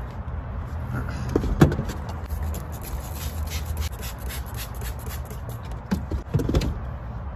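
Rustling and a few sharp knocks as someone moves about and handles things at an open minivan door, over a steady low rumble.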